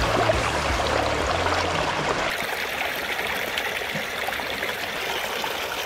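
Water streaming steadily through a sluice box over its matting. Under it, a low steady hum stops about two seconds in.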